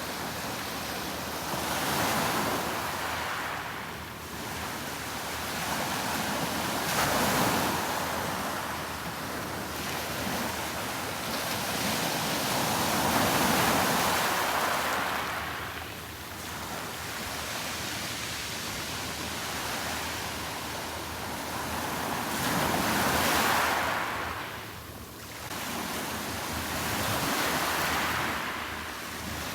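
Sea waves breaking on the shore, a rushing wash that swells and ebbs every few seconds, with some wind on the microphone.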